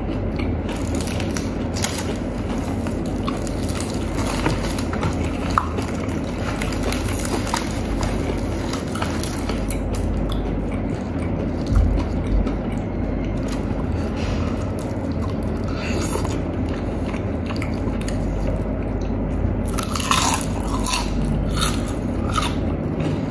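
Crispy fried chicken being pulled apart by hand and chewed, with scattered crunches and small wet tearing sounds, over a steady low background hum.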